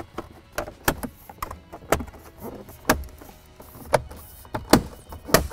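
Hard plastic interior trim panel on a Ford F-150 center console being fitted by hand: irregular sharp clicks and knocks as it is pushed against the console and its alignment pins seat, the loudest near the end.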